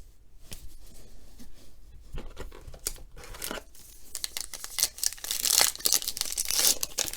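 A baseball card pack's wrapper being torn open and crinkled by hand. It starts with scattered light crackles and gets louder and denser from about halfway through.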